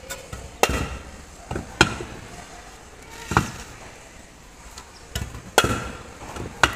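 Irregular sharp knocks, about seven or eight, a few of them loud: a small hammer striking lightweight aerated concrete (hebel) blocks and the blocks being knocked and set down.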